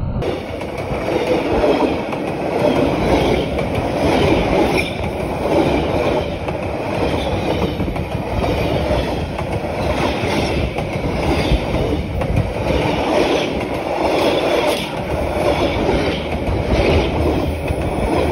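Railway carriages rolling past at close range, their steel wheels clattering over the rail joints in a repeating clickety-clack.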